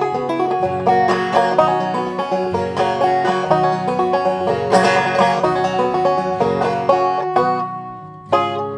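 Banjo with a clear drum head, picked in a fast rolling bluegrass pattern, then slowing and fading near the end, with a single chord struck and left ringing just before the close.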